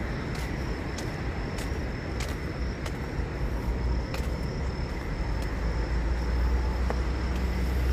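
Steady road-traffic noise with a strong low rumble, and footsteps on pavement at an even walking pace, about one every two-thirds of a second.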